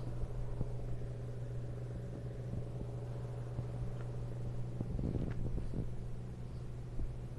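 Steady low hum, with a few light clicks and a brief rustling cluster about five seconds in.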